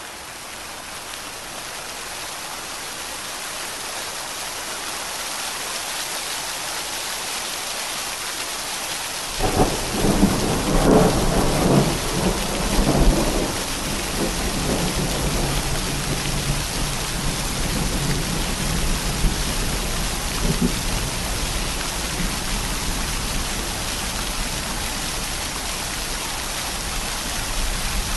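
Steady rain hiss that fades in, with a roll of thunder breaking in about nine seconds in, loudest for a few seconds, then rumbling away over the next ten seconds.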